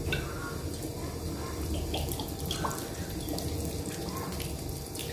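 Salty soy sauce poured from a small bottle, trickling and dripping onto chopped chilies and garlic in a ceramic dish.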